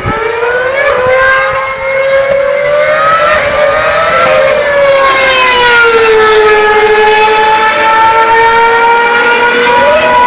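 Formula 1 car's 2.4-litre V8 engine running at very high revs. The high-pitched note climbs over the first few seconds, drops about five seconds in as the car passes at its loudest, then climbs slowly again with a quick jump in pitch near the end.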